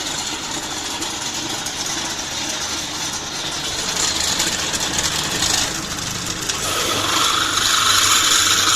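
Electric drill running and boring a 9 mm hole through a steel bicycle hub end cap, a steady whirring with metal-cutting noise. A higher grinding tone comes in over the last two seconds, where it is loudest.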